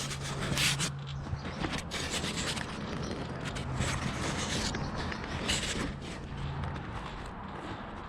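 Footsteps and the crackling, scraping rustle of dry brush as someone pushes through overgrown vegetation. A steady low hum runs underneath and stops about seven seconds in.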